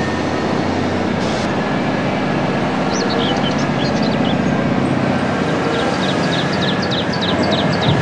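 Large mining haul truck's diesel engine running steadily as it raises its dump body and tips out its load of rock.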